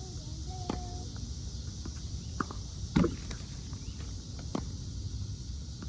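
Tennis ball struck with a racket and bouncing on a hard court: a few short sharp pocks, the loudest about three seconds in.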